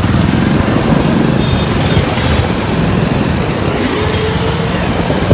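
Steady engine and road noise of a motorbike taxi in motion, heard from the pillion seat as a heavy low rumble. A faint held tone shows for about a second past the middle.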